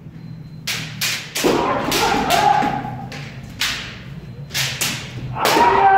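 Kendo practice: about ten sharp strikes and stamps of bamboo shinai and feet on a wooden dojo floor, with kiai shouts, one held from about a second and a half in and a long falling one starting near the end.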